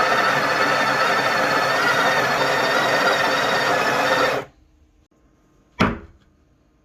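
Breville Barista Express espresso machine's built-in burr grinder grinding coffee beans at its finest setting: a steady, loud grinding whine for about four and a half seconds that cuts off suddenly. A single sharp knock follows about a second and a half later.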